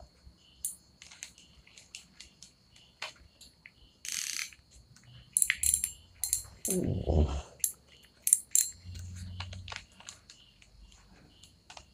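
Hammerhead Flanker 1000 spinning reel mounted on a rod, handled and turned by hand: scattered light metallic clicks and ticks, with a brief rustle about four seconds in and a short low sound around seven seconds.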